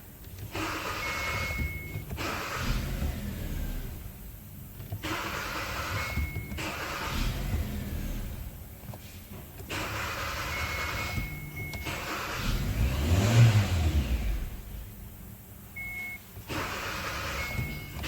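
Kia Cerato (Forte) engine being cranked in repeated attempts. Around two-thirds of the way through it catches, revs up briefly and dies again: the start-and-die condition the title blames on a faulty ECU (code P1690). Short high beeps sound between attempts.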